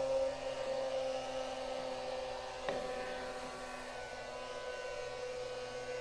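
Small electric motor and fan of a homemade plastic-bottle vacuum cleaner running with a steady whine, with one sharp click a little before halfway.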